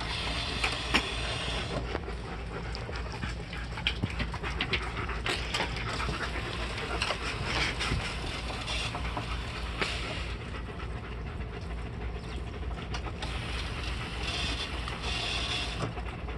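A German shepherd puppy pawing and splashing in its metal water bowl: irregular splashes and knocks, with a dog panting.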